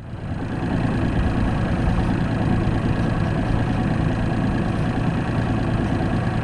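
Bass boat's outboard motor idling steadily.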